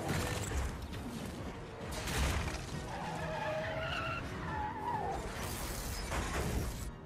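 Car-chase film sound mix: crashes as barriers are smashed near the start and about two seconds in, tyres squealing in the middle, and a harsh grinding scrape of a steel vault dragged over the road near the end.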